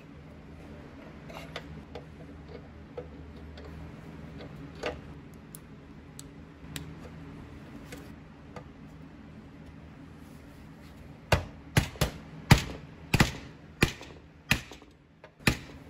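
A nut driver with a socket pressing a push-on axle cap onto the steel axle of a Tonka toy truck wheel, with light scattered clicks of metal parts being handled and then a run of eight or nine loud, sharp metal knocks over about four seconds near the end.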